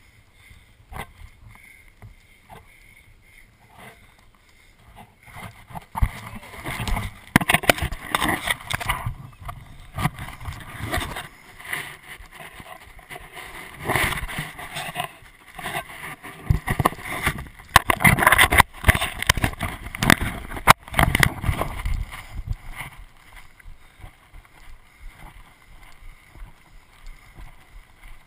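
Rubbing and jolting noise from a body-worn action camera carried by a runner on a rough dirt trail. It comes in irregular loud bursts, with a few sharp knocks, through the middle of the stretch and is quieter at the start and near the end.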